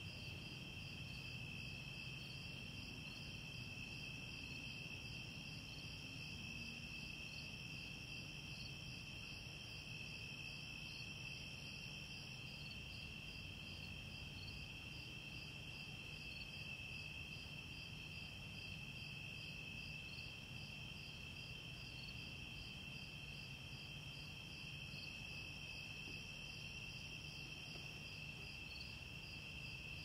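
Crickets chirring without a break: one continuous high trill and a higher chirp that pulses evenly, over a faint low hum.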